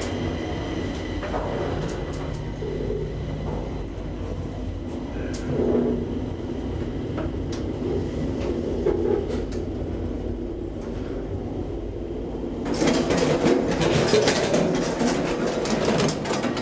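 A steady low rumble and hum inside a moving hydraulic elevator car in a metro station. About three seconds before the end, a louder rush of metro train noise comes in.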